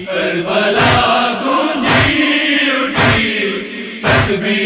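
Male voices chanting a noha (Shia lament) refrain, over a heavy beat that keeps time about once a second.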